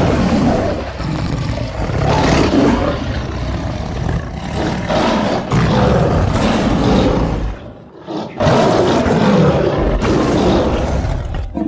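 Smilodon (sabre-toothed cat) creature sound effects: big-cat roars, one after another, with a brief break about eight seconds in.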